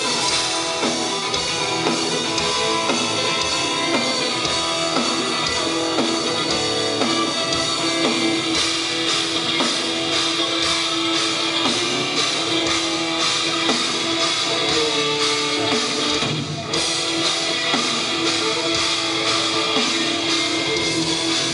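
Live band music played loud: a bowed violin carries held notes over electric guitar and drums, recorded from the crowd. The music breaks off for a moment about sixteen seconds in.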